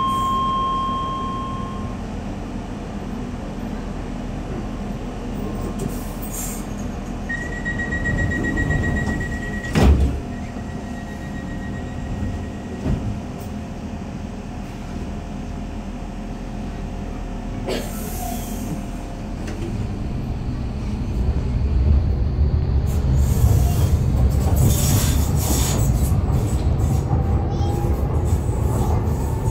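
Docklands Light Railway train standing at a platform: a short beep right at the start, a rapid beeping about seven seconds in, and a sharp knock about ten seconds in. Over the last ten seconds the train pulls away, its rumble growing louder and its motor whine rising in pitch as it speeds up.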